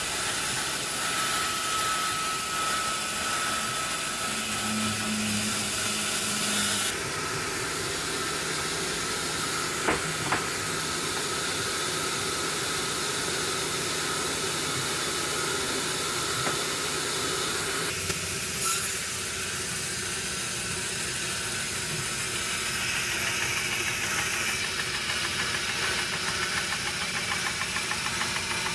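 Sawmill machinery running: a steady hissing noise over a low engine or motor sound, with a couple of short knocks about ten seconds in. The sound changes abruptly twice, about seven and eighteen seconds in.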